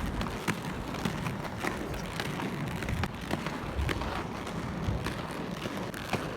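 Roller skate wheels rolling over pavement: a steady rumble broken by many irregular sharp clicks.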